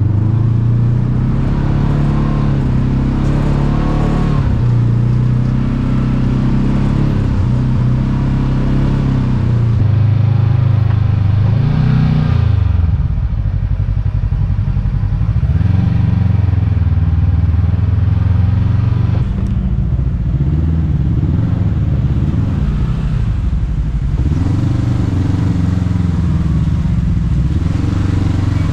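Kawasaki KRX 1000 side-by-side's parallel-twin engine running at trail speed. Its pitch rises and falls repeatedly as the throttle is worked.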